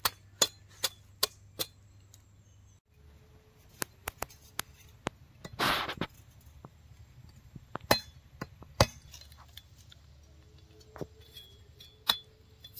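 Heavy chopping knife striking a green tender coconut: a run of sharp chops about two or three a second at first, then scattered blows, with one longer rasping cut near the middle.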